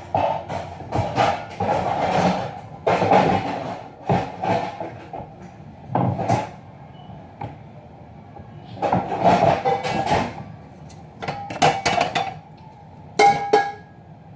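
Pots and pans clattering and knocking as they are handled, in several bursts with pauses between, and a short metallic ring from one of the clangs near the end.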